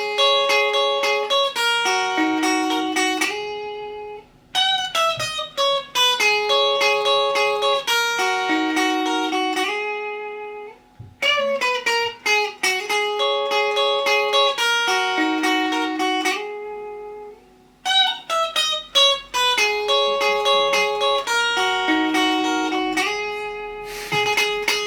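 A single guitar being practised: the same picked, broken-chord riff is played over and over, four times through, with a brief break between each run.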